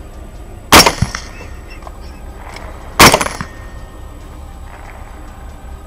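Two suppressed rifle shots from LWRC Six8 rifles firing 120-grain Hornady SST, one about a second in and one about three seconds in. Each is a loud sharp crack followed by a fainter knock a fraction of a second later.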